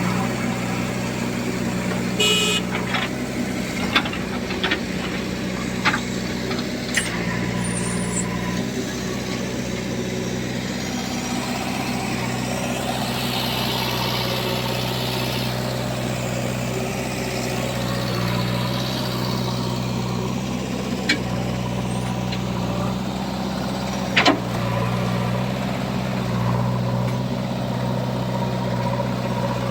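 Heavy diesel engine of earth-moving or farm machinery running steadily, with a handful of sharp knocks or clanks over the top, the loudest about three-quarters of the way through.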